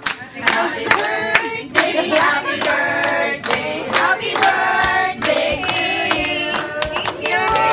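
A group of women singing a birthday song together, with hand-clapping along.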